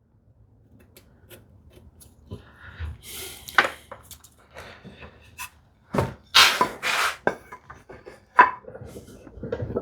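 Wood and hand tools handled on a workbench while a mortise is marked out: scattered sharp knocks and taps of wood on wood, with a few short scraping strokes.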